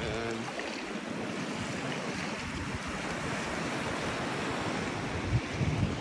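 Small waves washing onto a sandy shore, a steady surf hiss, with wind bumping the microphone a few times near the end.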